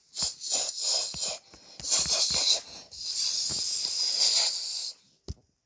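Three long hissing noises, the last about two seconds long, with a short click near the end.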